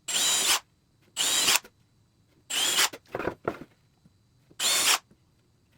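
Power drill boring screw holes in a wooden board, run in short bursts of about half a second each, five times, with a motor whine in each burst.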